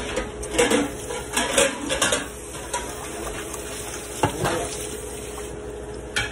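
A spoon stirring and scraping through rice in a metal pan, several strokes in the first two seconds, over the steady sizzle of ripe plantain slices frying in oil. A couple of sharp knocks against the pans or dishes come about four seconds in.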